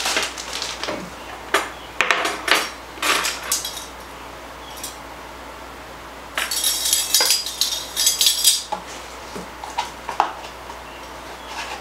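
A set of metal measuring spoons on a ring jangling and clinking as they are sorted through, most densely in a jangle of about two seconds midway. Scattered clicks and handling knocks come before it and a few clinks after.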